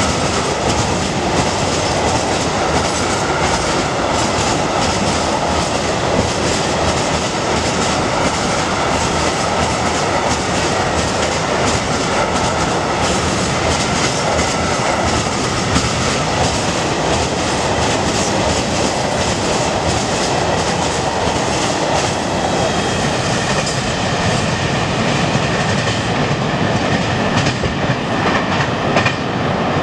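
Freight train of open gondola wagons passing close by at speed: a steady rumble of wheels on rail with a rapid clatter of wheels over rail joints and a faint high whine.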